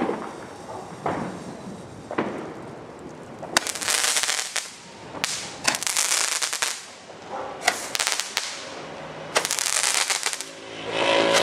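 Fireworks going off: a sharp bang at the start and a few smaller pops, then from a few seconds in, repeated bursts of loud crackling, each lasting about a second.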